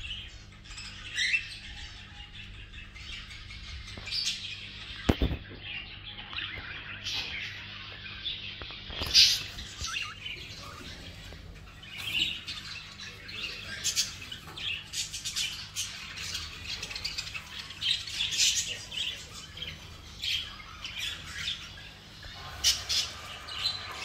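Aviary birds, among them cockatiels, chirping and squawking: many short, high calls overlapping, busier in the second half. A single knock about five seconds in.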